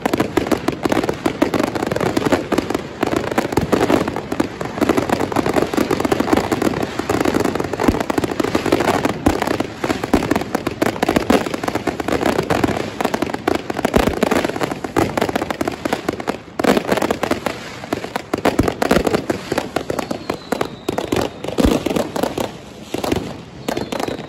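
A continuous barrage of fireworks and firecrackers, a dense rapid crackle of bangs with no break, and a few louder single reports standing out now and then.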